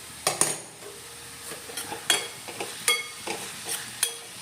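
A metal spoon clinking and scraping against a kadai while stirring sambharo, a vegetable stir-fry, over low heat. There are about eight sharp clinks, a few with a short metallic ring, over a faint sizzle.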